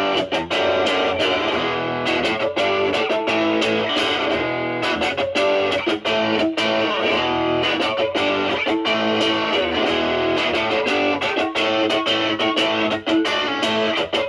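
Electric guitar, a Stratocaster with single-coil pickups, played through a Proco Brat distortion pedal with an OP07 chip, gain at about 1 o'clock, into a Marshall Valvestate amp. Notes and chords are picked continuously, with many sharp attacks.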